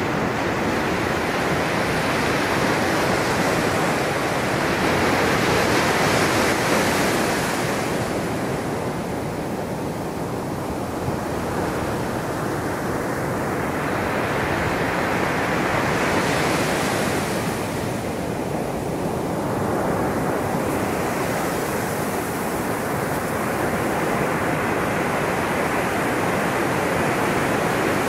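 Ocean surf breaking on a sandy beach, a continuous rush of waves that swells and eases as each wave comes in and washes up the shore.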